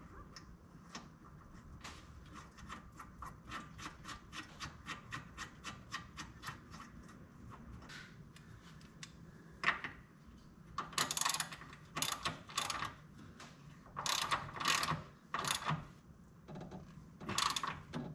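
Hand ratchet wrench clicking as a fastener is turned: a steady run of small clicks, about four a second, then louder, quicker bursts of ratcheting in short strokes over the second half.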